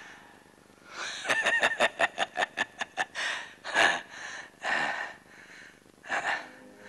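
A person laughing in quick short bursts, then several heavy gasping breaths.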